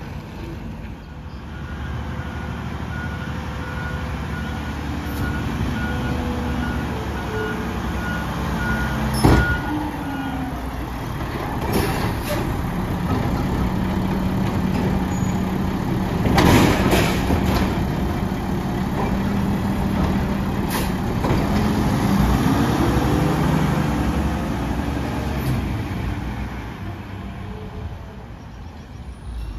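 Mack LR garbage truck with a Labrie Automizer side-loader body, its engine running as it works and then drives past. A beeping alarm repeats for the first ten seconds or so, and there are sharp loud sounds about nine, twelve and sixteen seconds in.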